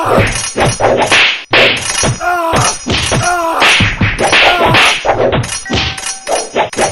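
Sword-fight sound effects: a rapid, steady string of whacks and clashing hits, about three a second, some with a brief metallic ring.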